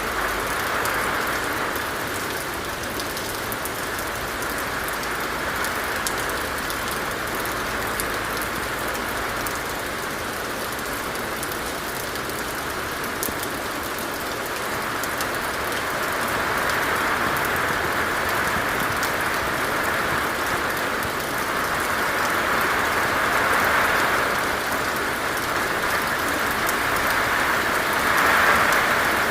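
Steady rain falling on a hard surface, a continuous hiss with the patter of individual drops, swelling and easing gently in waves.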